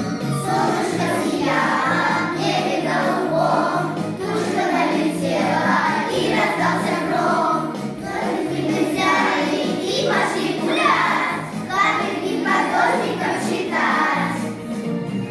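A children's song: voices singing over instrumental backing with a bass line stepping from note to note.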